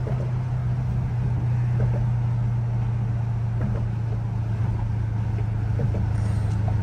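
2020 Dodge Challenger Scat Pack's 392 Hemi V8 droning steadily while driving, heard from inside the cabin, slowly getting a little louder.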